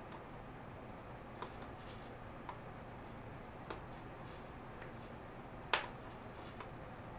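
Faint, sparse small clicks of a metal watch bracelet's link and tiny screw being handled with the fingers, with one sharper, louder click after about six seconds.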